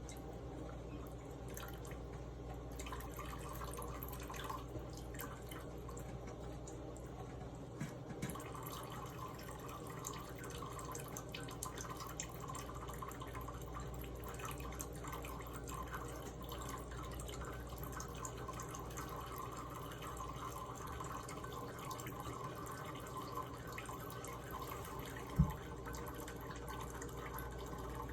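Faucet running in a thin stream into a sink, splashing and dripping steadily. A single brief thump near the end.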